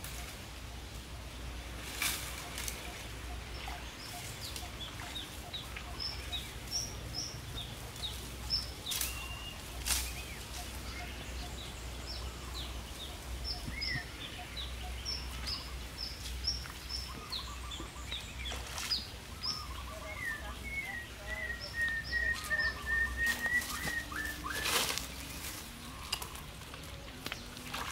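Small birds chirping and calling throughout. In the latter half one bird gives a long run of quick repeated notes. A few sharp knocks stand out, the loudest near the end.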